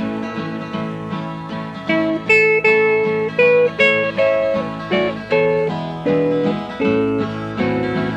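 Instrumental break of a country gospel song: a guitar picks out the melody note by note over a strummed acoustic backing, with no singing.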